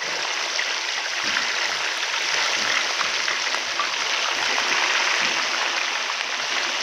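Fish pieces deep-frying in hot ghee in a large pot: a steady, dense sizzle full of small crackles.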